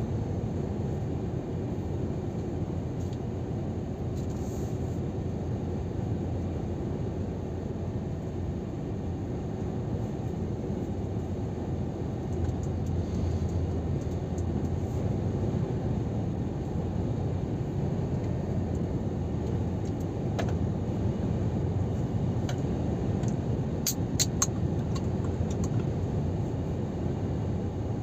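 Steady engine and tyre rumble heard inside the cab of a Scania R500 truck cruising at motorway speed, with a few short clicks about two-thirds of the way through.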